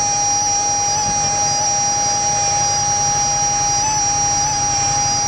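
A steady whistling tone, held at one pitch with small wobbles, sounds over the low, pulsing run of a John Deere 50's two-cylinder engine as the tractor drives slowly.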